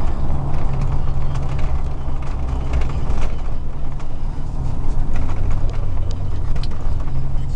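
A 2000 Chevrolet Silverado's 4.8-litre V8 with a 3-inch exhaust running steadily while driving, heard from inside the cab with road noise. The engine note drops a little about five seconds in.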